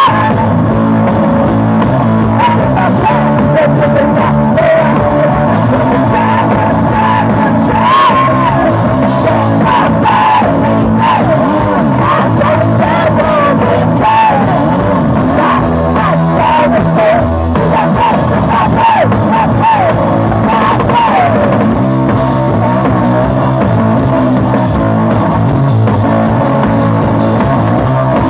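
A punk blues rock band playing live: guitar and drums with a woman singing over them. The singing stops about twenty seconds in, leaving guitar and drums.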